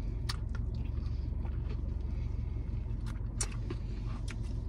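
Steady low hum of a parked car's idling engine, with a few short sharp clicks as the black plastic takeout container is handled, twice near the start and twice about three seconds in.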